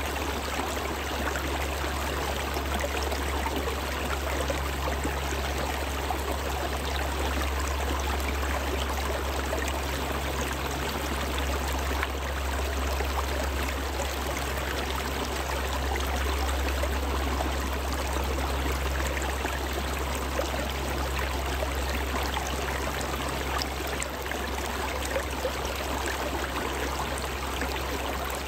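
Small snowmelt stream flowing over rocks between shelves of ice, a steady rushing burble with a constant low rumble underneath.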